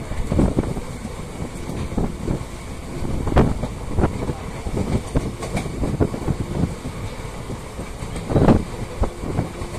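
Passenger train running on the track, heard from a coach window: a steady rumble with an irregular clatter of the wheels over the rails, and louder knocks about three and a half seconds in and again near the end.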